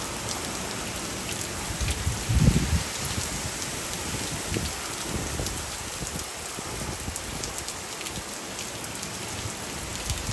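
Steady rain falling on the garden and lawn in hurricane wind. About two seconds in, a gust buffets the microphone with a low rumble, the loudest moment, and smaller gusts follow.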